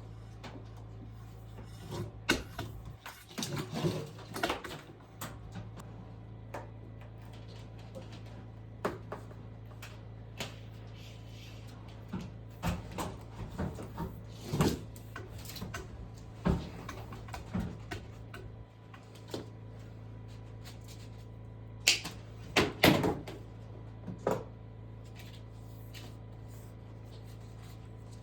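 Irregular knocks and clatter, like wood or tools being handled, with the loudest cluster of knocks about three-quarters of the way through, over a steady low hum.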